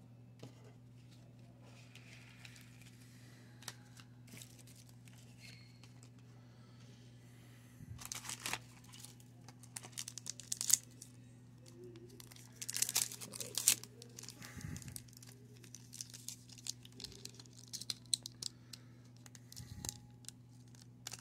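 Foil wrapper of a 1996 Pinnacle baseball card pack being torn open and crinkled by hand, in repeated bursts of tearing and crackling that begin about eight seconds in, over a steady low hum.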